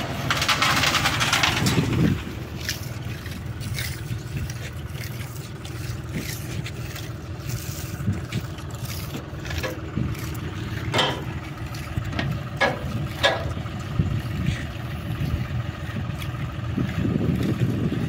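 Tractor engine running steadily to drive a transit concrete mixer's drum. There is a loud noisy rush for the first two seconds and a few short sharp knocks a little past the middle.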